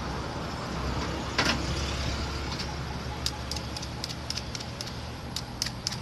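Light clicks and taps from handling small parts and tools, with one sharper knock about a second and a half in and a quick irregular run of clicks in the second half, over a steady low background hum.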